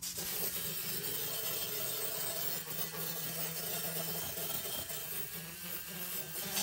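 Flex-shaft rotary tool running with a small wire wheel scrubbing a perforated sheet-steel PC drive-bay bracket: a steady, even scraping whir.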